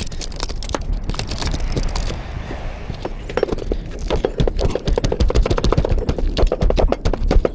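Rapid knocks, clicks and rattles from the parts of an old conservatory roof being handled and taken apart, getting busier from about three seconds in.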